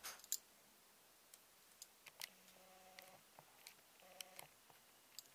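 Faint, scattered light metallic clicks and ticks from the metal collar and ring on top of a dental X-ray head being handled and turned. There are two brief faint steady tones, about two and a half and four seconds in.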